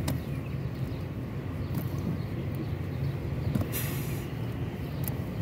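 Small boat's motor running steadily with a low rumble. A short rustling hiss comes near four seconds in.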